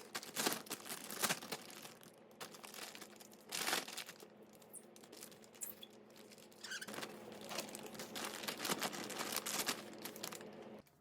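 Plastic grocery packaging being handled, crinkling and rustling in irregular bursts.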